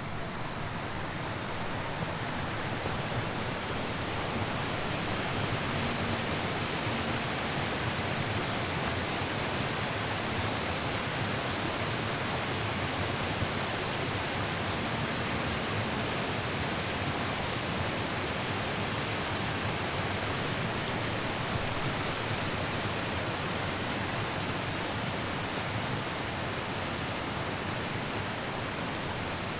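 Steady, even rushing noise that swells over the first couple of seconds and then holds level.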